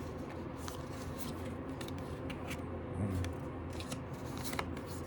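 Light clicks, snips and rustles of a Pokémon card box and its packaging being opened by hand, over a faint steady hum.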